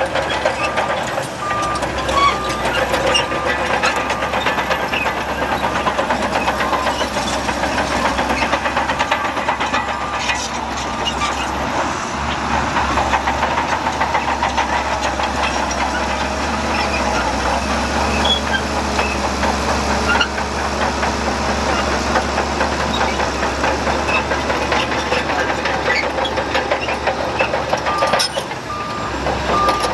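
Heavy diesel earthmoving machinery running steadily under load. A vehicle's reversing alarm beeps in the first few seconds and again near the end.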